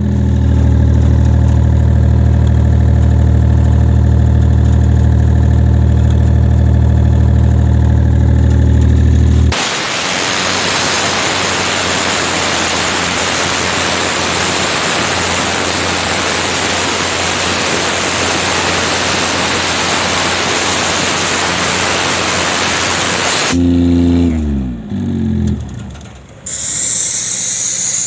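Airman PDS 90S diesel screw air compressor running steadily, then about nine seconds in a loud rush of compressed air blasting from an opened outlet valve for about fourteen seconds. The blast cuts off suddenly, the engine note shifts, and near the end a hissing rush of air starts again as the tank is vented.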